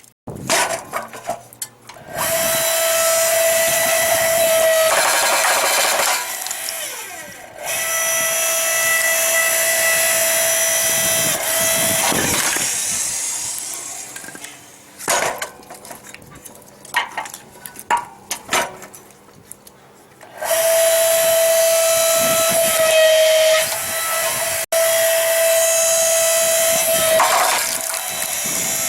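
Harbor Freight 93815 4-ton electric log splitter running: its electric motor and hydraulic pump give a steady high whine over a rushing noise. It starts and stops about three times, with knocks and clatter in the pauses.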